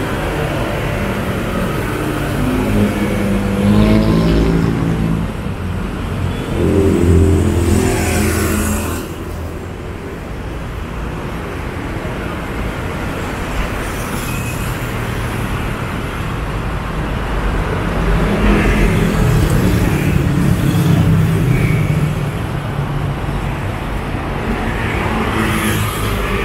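Road traffic on a city street: motor vehicles passing close by, their engine note rising and falling as each goes past. The loudest passes come in the first nine seconds and again between about eighteen and twenty-two seconds in, over a steady background hum of traffic.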